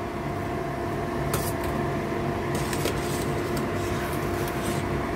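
Steady kitchen hum with a faint even tone underneath. A few light metallic clinks come from a wire strainer knocking against a steel stockpot as blanched fish maw is lifted out of the water, about a second and a half in and again around three seconds.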